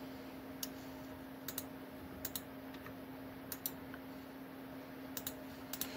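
Computer mouse clicking, mostly in quick pairs every second or so, over a faint steady hum.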